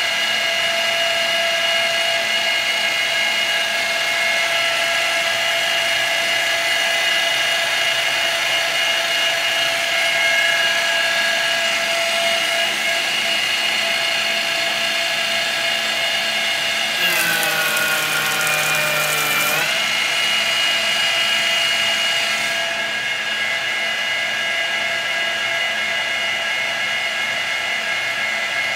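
TOS FN20 milling machine face-milling a small part dry with a Tungaloy face mill under CNC control: a steady whine from the spindle drive with the hiss of the cut. About 17 seconds in, the whine sags in pitch for about two seconds under a harsh rasp, then comes back up.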